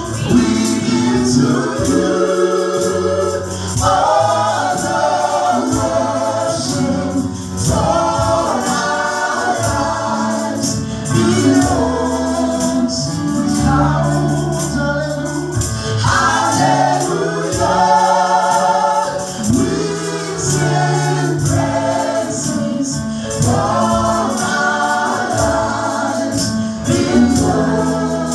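Gospel praise singing by a choir or congregation with band accompaniment: bass, keyboard and a steady beat of tambourine-like percussion.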